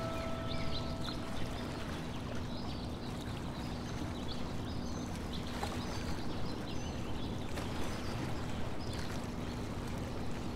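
Outdoor ambience: small birds chirping over a steady low hum and a rushing noise, with held notes of music dying away in the first second or two.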